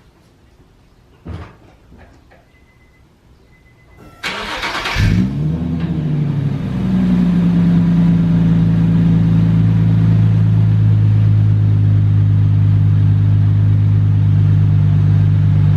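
Infiniti G37 sedan's 3.7-litre VQ V6 started warm with the mufflers removed (muffler delete on test pipes). After a thump and a short beep, the starter cranks about four seconds in. The engine catches with a rev flare and settles into a loud, steady idle.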